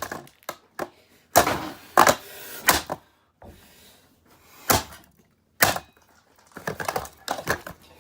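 Irregular sharp knocks and clunks of hard objects striking and handling a plastic vacuum cleaner body, about eight heavy hits spaced unevenly, then a quicker run of lighter clicks and rattles near the end.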